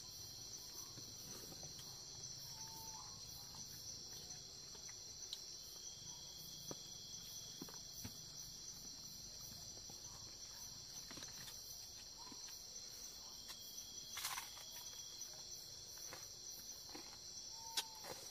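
Forest insects keep up a steady, high-pitched chorus. A few faint clicks and knocks sound over it, the sharpest one near the end.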